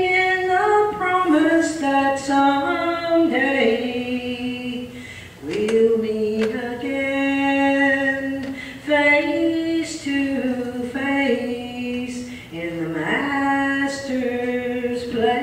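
A woman singing a slow gospel song in long held notes that glide from one pitch to the next, with short breaths between phrases.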